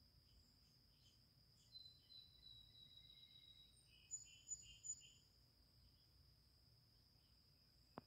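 Faint backyard ambience: a steady high insect trill throughout. About two seconds in, a bird gives a long thin whistle, then four quick chirps. A single sharp click comes just before the end.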